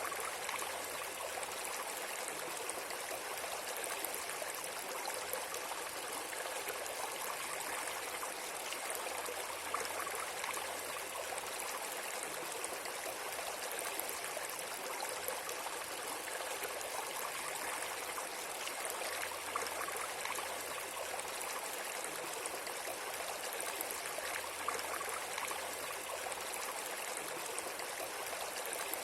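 Steady flowing stream: water running and babbling without a break.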